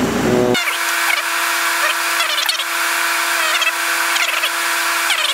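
CO2 laser engraver's stepper motors whining in short rising and falling pitch sweeps as the laser head moves and engraves small marks, over a steady hum.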